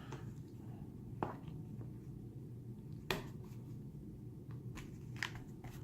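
A few sharp, separate clicks and taps as encapsulated coins are handled and set into a display box, the loudest about three seconds in, over a faint steady hum.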